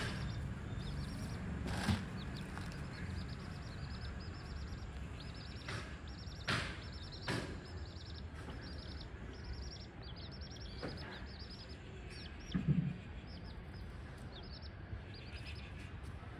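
Young chicks peeping in quick runs of short, high cheeps, on and off throughout. A few sharp clicks and one brief low thump about three-quarters of the way through.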